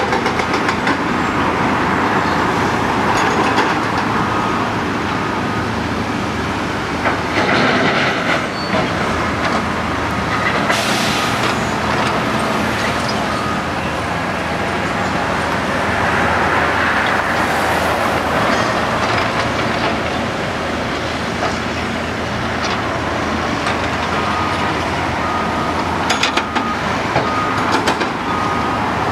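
Steady outdoor din of construction machinery and traffic, with a faint beep repeating at one pitch in two stretches, midway and near the end.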